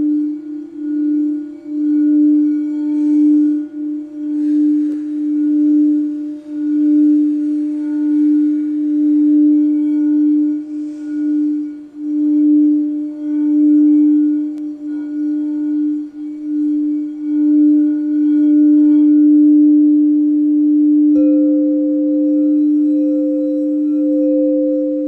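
Crystal quartz singing bowl ringing in one steady low tone that swells and fades in slow pulses. About 21 seconds in a second bowl is struck and joins at a higher pitch, both sounding together.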